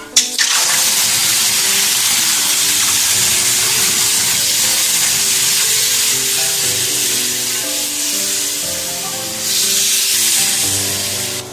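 Tamarind water poured into ginger and green chillies frying in hot coconut oil in a kadai, setting off a loud, steady sizzle that starts suddenly and grows louder again near the end.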